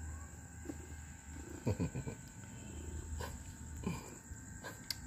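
Domestic black cat making low rumbling sounds that come and go, with a few short, louder sounds falling in pitch in between.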